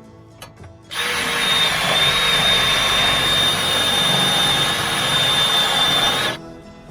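Power drill running for about five seconds with a steady high whine, starting about a second in and stopping sharply near the end.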